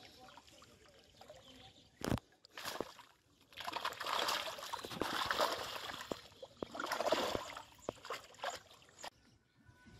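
Splashing and sloshing water as a cast net holding fish is hauled out of a shallow pond, in two loud bouts with scattered small splashes. A single sharp knock comes about two seconds in.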